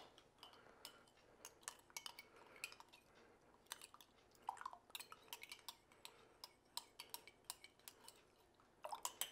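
A spoon clinking lightly and irregularly against a ceramic mug, dissolving honey in hot water by stirring; the clicks are faint.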